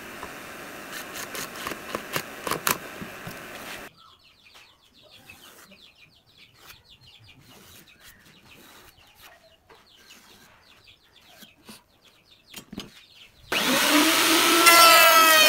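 A few sharp clicks over a steady hiss as screws go into a pine box frame, then quiet faint scratching. About 13.5 s in, a router table's motor starts suddenly with a loud whine of several tones that rises as it spins up and then holds steady.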